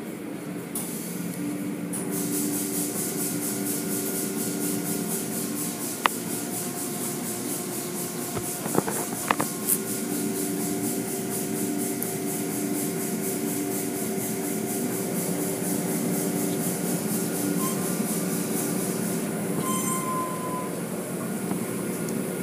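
Automatic tunnel car wash running: a steady mechanical hum from its motors, layered over a hiss of water spray and brushes. A few sharp knocks sound about six seconds in and again around nine seconds in.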